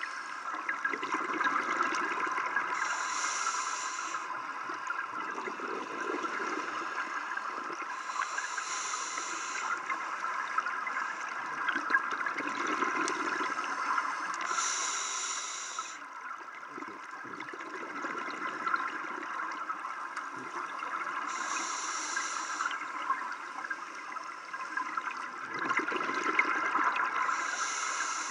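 Scuba regulator breathing underwater: a hissing inhalation about every six seconds alternating with bubbling exhalations, over a steady underwater hiss.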